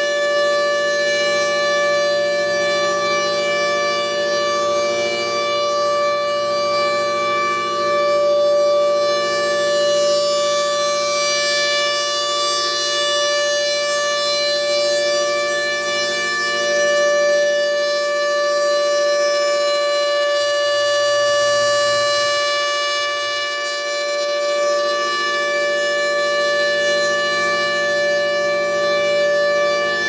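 Thunderbolt 1000 rotating civil defense siren sounding a steady, unwavering-pitch tone at full speed during a test. Its loudness swells and dips gently as the turning horn sweeps toward and away.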